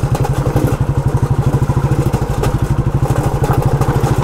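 Motorcycle engine running steadily while riding, its exhaust pulses coming fast and even.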